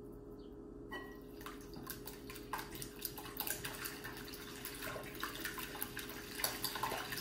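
A whisk beating eggs and chopped parsley in a glass mixing bowl: a quick, even sloshing with many small clicks of the wires against the bowl, starting about a second in.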